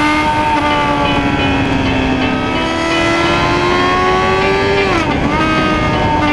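Motorcycle engine accelerating hard, its pitch climbing steadily. About five seconds in the pitch drops sharply at a gear change, then starts to climb again.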